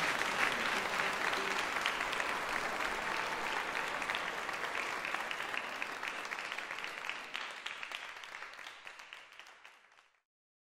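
Audience applause, a dense patter of many hands clapping, fading out over the last few seconds.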